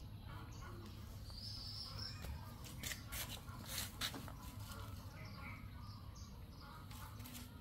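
Faint outdoor ambience with birds calling in the background and a few short clicks or rustles, the loudest about three to four seconds in.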